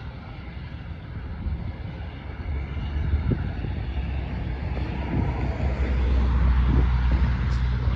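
Distant firefighting air tanker's engines running on the runway, growing steadily louder from about halfway in as it powers up, with wind buffeting the microphone.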